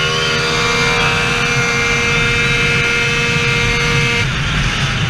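Tuned 70cc two-stroke Minarelli scooter engine (2Fast cylinder, HK expansion exhaust) held at high revs under full throttle, a steady high-pitched wail. About four seconds in the throttle closes and the wail drops away.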